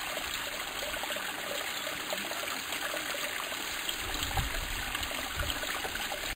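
Steady running water, like a small stream trickling, that cuts off suddenly at the end.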